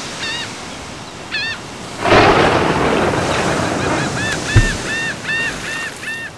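Surf on a shore, with a wave breaking loudly about two seconds in, and gulls calling over it. There are two single calls first, then from about four seconds in a run of quick repeated calls, about three a second.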